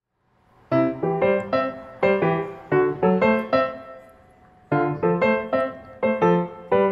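Piano music: a tune of struck notes that starts about three-quarters of a second in, fades into a short pause just past the middle, then picks up again.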